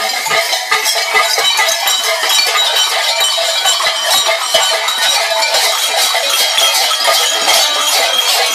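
Many bells worn on fur-costumed Mikuláš devil outfits, clanging and jangling loudly and without a break as the wearers move about.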